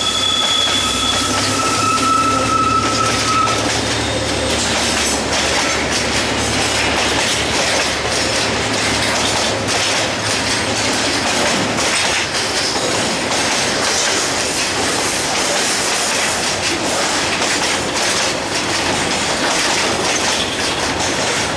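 Freight wagons loaded with shipping containers rolling past, their wheels clicking and clacking steadily over the rails. A thin, high wheel squeal sounds in the first few seconds.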